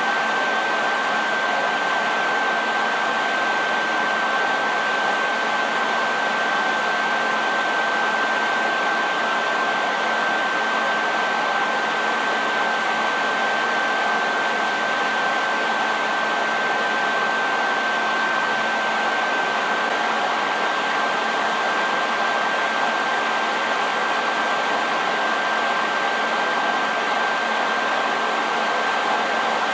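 Hair dryer running steadily: an even rush of air with a constant high whine from its motor.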